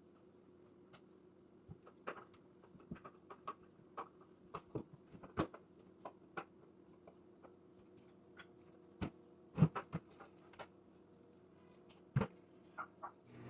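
Scattered light clicks, taps and knocks of objects being handled, irregular and of varied strength, with the loudest knocks about nine and a half and twelve seconds in. A faint steady hum lies underneath.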